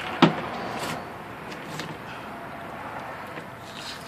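Handling noise from skinning a catfish with pliers on a tabletop: a sharp knock a quarter of a second in, a softer one near the one-second mark, then a few faint clicks.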